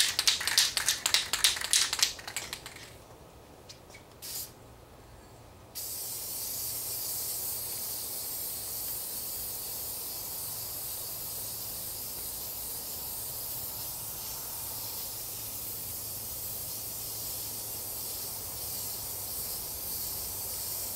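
Aerosol can of spray adhesive spraying onto a wooden board. A quick rattling fills the first two seconds, then a short spurt about four seconds in, then a long continuous hiss from about six seconds on as a generous coat is laid down.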